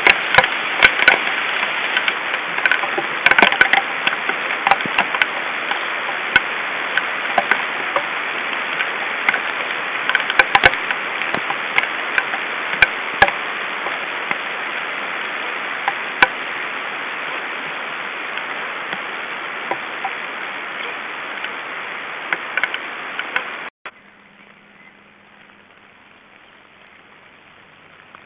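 Hail with heavy rain falling on the forest and the stork nest: a steady hiss with many sharp clicks of hailstones striking, easing gradually. It cuts off abruptly about 24 seconds in, leaving only a faint hiss and a brief low hum.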